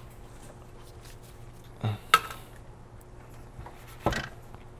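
Thermal camera on its stand being set down and positioned over the board holder on the workbench: a few hard knocks and clunks, the sharpest just after two seconds in and another about four seconds in.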